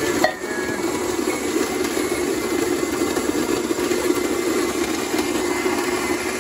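Capresso burr grinder's electric motor running steadily as it grinds coffee beans, a constant drone.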